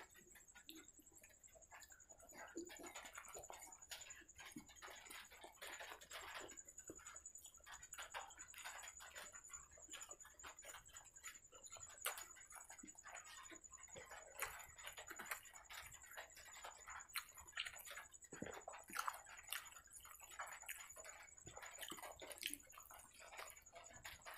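Quiet close-up eating sounds: chewing and small wet mouth clicks as fried puri dipped in curry is eaten by hand, irregular and soft throughout. A faint steady high-pitched whine sits underneath.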